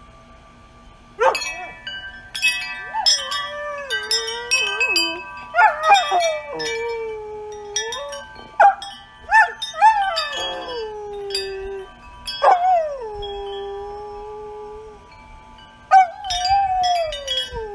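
Golden retriever howling along with ringing metal tube wind chimes. The chimes are struck sharply again and again and ring on, while the dog gives repeated long howls that each slide down in pitch, starting about a second in.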